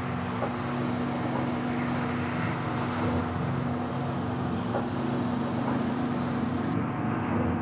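A steady droning sound with a constant low hum under a wash of noise, without a beat or pauses.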